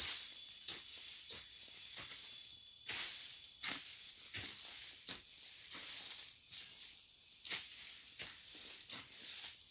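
Metal hoe chopping and scraping into dry, littered ground: a steady run of knocks and scrapes, a few strikes louder than the rest.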